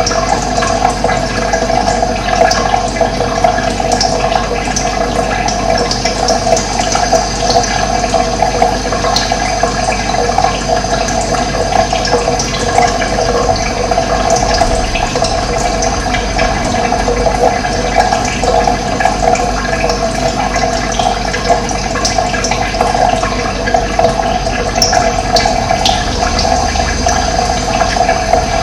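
Steady rush of running water, with a few faint high bird chirps over it.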